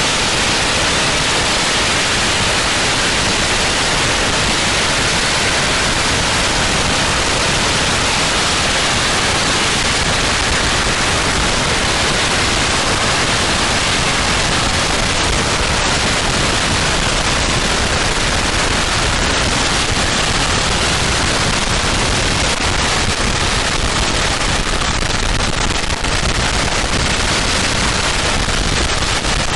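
Long strings of firecrackers going off nonstop, the bangs so rapid and close together that they blur into one loud, steady crackle.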